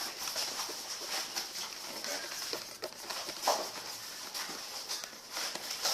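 Spoon stirring a thick glue and baking-soda slime mixture in a bowl: faint, irregular scrapes and small clicks.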